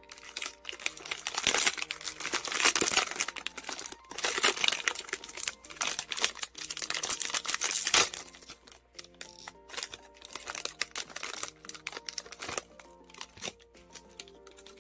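Silver foil blind-box bag crinkling loudly as hands open it and pull the figure out, for about the first eight seconds; then quieter handling clicks. Background music plays throughout.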